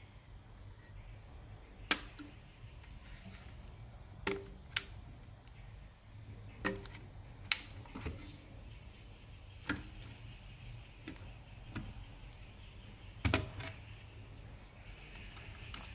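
Scattered sharp clicks and light metallic knocks, about ten of them at uneven intervals, from a car radio head unit's sheet-metal chassis and circuit board being handled and taken apart by hand. A low steady hum lies underneath.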